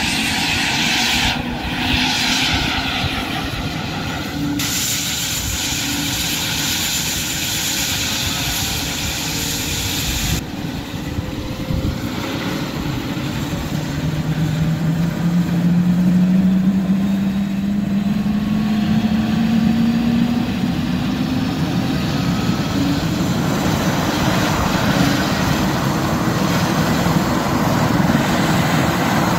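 Medical helicopter's turbine engines and rotor running on the ground, a loud steady whine and whoosh, with a tone that rises slowly in pitch from about halfway through.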